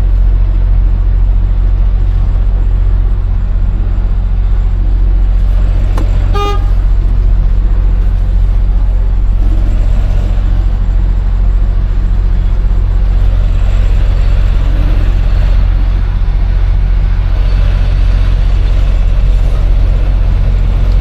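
Semi truck's diesel engine running steadily at low revs while the rig is maneuvered slowly, with one short horn toot about six seconds in.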